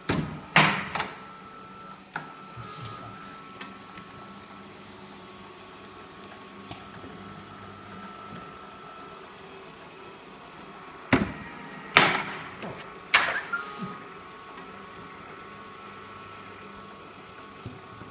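Roll film laminator running, its drive motor giving a steady hum and whine, with a few loud sharp crackles and knocks about a second in and again around eleven to fourteen seconds in.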